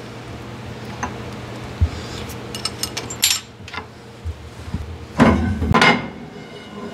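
Steel hand tools clinking and rattling against truck axle parts: scattered light clicks, then two louder metallic rattles about five seconds in, over a steady low hum.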